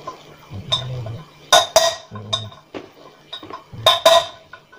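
Hammer tapping a wheel bearing into the alloy rear wheel hub of a Honda CBR150R: a series of sharp metal-on-metal knocks at uneven spacing, each with a short ring. The blows are driving the bearing in until it sits flush.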